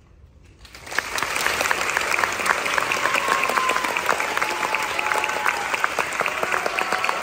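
Audience applause that breaks out about a second in, jumping quickly to full, steady clapping.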